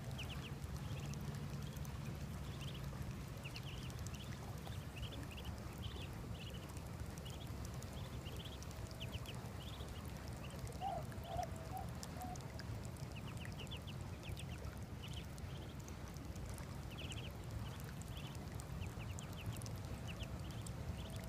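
Muscovy ducklings peeping: short high chirps in quick groups of two or three, repeating every second or so, over a steady low rushing noise.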